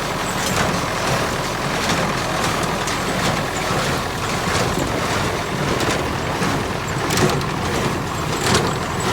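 1971 David Brown 990 tractor's diesel engine running under load, driving a New Holland 268 square baler at work in the hay. A regular knock comes about every second and a bit through the steady engine noise.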